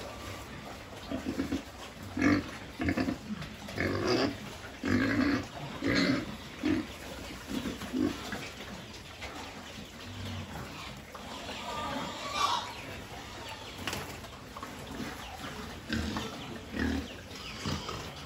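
A group of pigs grunting as they feed together at a trough. Short grunts come thick and fast in the first half, then thin out to occasional ones.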